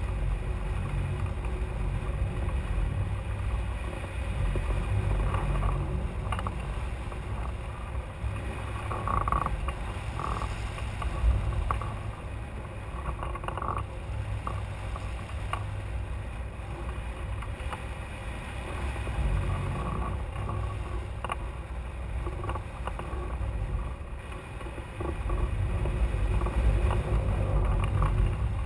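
Wind noise from the airflow over a hang glider's on-board camera microphone in flight: a low rumble that swells and eases.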